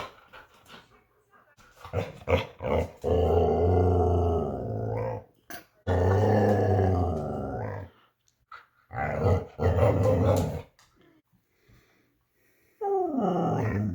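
Husky 'talking': a few short calls, then three long drawn-out pitched vocalizations of about two seconds each, and a falling call near the end.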